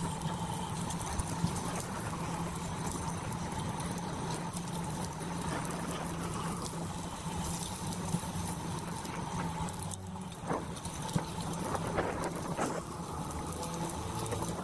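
Steady crackling, rustling noise of a bicycle ride on a trail: tyres rolling over the surface and wind on the action camera, with scattered sharp ticks in the later seconds.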